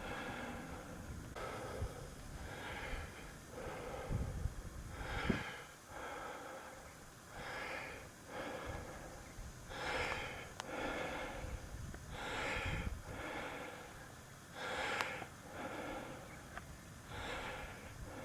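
A person breathing hard in quick, rhythmic breaths, roughly one a second.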